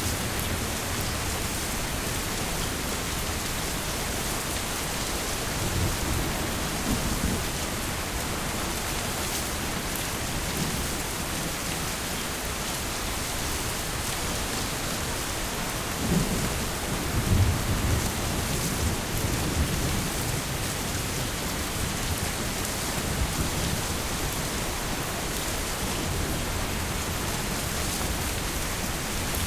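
Heavy rain falling steadily, with low rolls of thunder rumbling through it, swelling about six seconds in and again from about sixteen to twenty seconds.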